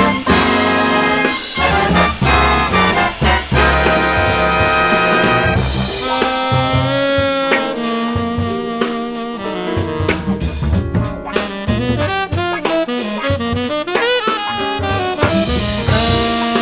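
Recorded jazz orchestra music: brass playing held chords over a drum kit, with a single melodic line taking over about six seconds in.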